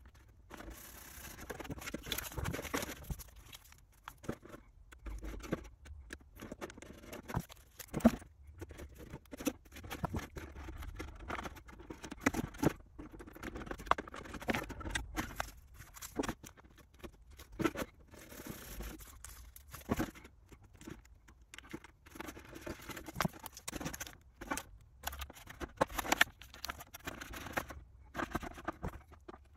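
Irregular small clicks, scrapes and rustles of a vinyl sticker sheet being cut out and handled on a cutting mat.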